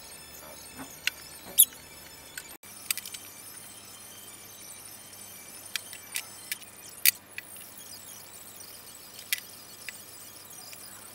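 Scattered sharp clicks and light knocks from wooden cabinet parts and a glue bottle being handled on a workbench, over a faint steady hum. The loudest knock comes about a second and a half in.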